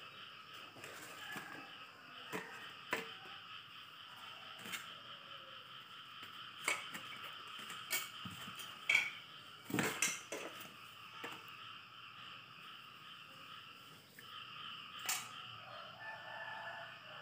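Scattered knocks and light metallic clatter from a stick welder's electrode holder, cable and a metal plate being handled and set on a wooden stump, over a steady faint hum. The knocks come thickest about nine to ten seconds in.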